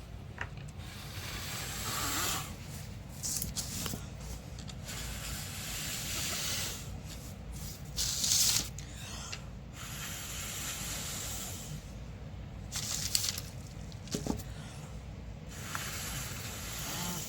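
A person blowing long breaths of air through pursed lips onto wet poured acrylic paint, to push it out into a bloom. It comes as a series of hissing gusts, each a second or two long, with short pauses between them.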